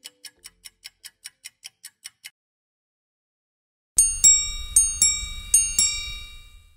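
Clock-like ticking, about five ticks a second, that stops a little over two seconds in. After a short pause, a bright bell-like chime is struck about six times and rings on as a logo jingle; this chime is the loudest sound.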